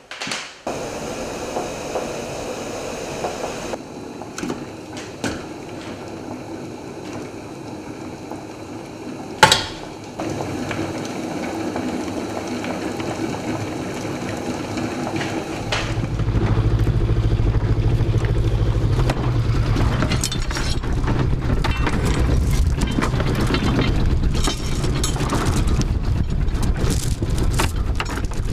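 A large saucepan of rice at the boil on a gas hob, with one sharp knock about nine seconds in. About halfway through, the old diesel inboard engine of a small wooden clinker-built boat takes over, running steadily with a loud low rumble.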